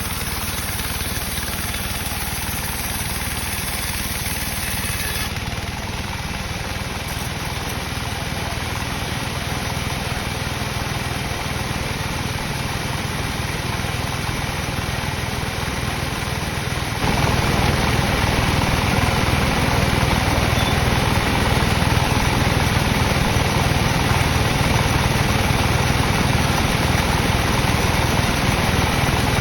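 Engine-driven sawmill running steadily while sawing a teak log. About seventeen seconds in, the sound abruptly gets louder and fuller and stays that way.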